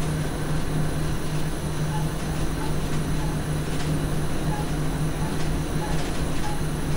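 Steady hum and running noise inside the driving cab of a Dutch SGM Sprinter electric multiple unit, holding level throughout with no change in pitch.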